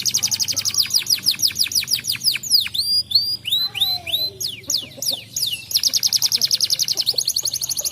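Domestic canary singing: a rapid trill of quick downward-sweeping notes, about ten a second, breaking in the middle into a few slower, varied whistled notes, then another fast trill.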